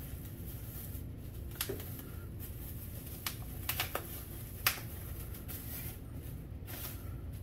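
Hands handling plastic grill parts and their packaging: a scattering of short, sharp clicks and crinkles, the sharpest nearly five seconds in, over a steady low hum.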